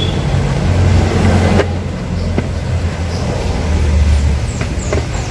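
Motorcycle engine running at low revs, a steady low rumble that swells and eases slightly.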